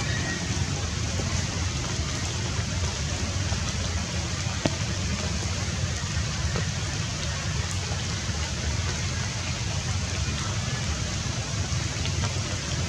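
Steady outdoor noise: an even rain-like hiss over a low rumble, with a few faint clicks.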